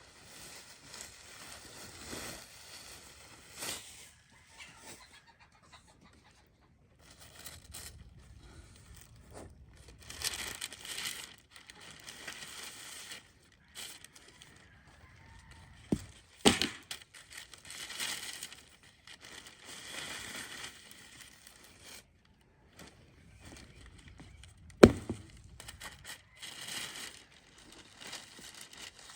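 Packing paper and cardboard rustling and crinkling as the wooden parts of a flat-pack chicken coop are unpacked and handled, with sharp knocks of wooden pieces: two close together about halfway through and the loudest near the end.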